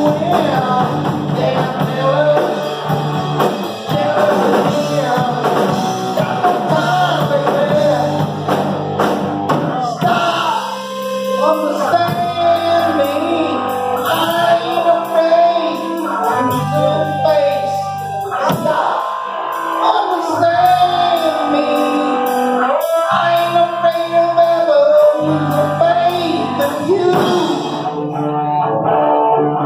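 Live rock band playing, with electric guitars, bass guitar and a drum kit, and a singer's voice over the band.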